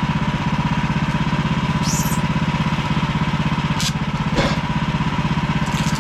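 An engine running steadily with a fast, even pulse and a faint steady whine, with a couple of brief knocks about two-thirds of the way through.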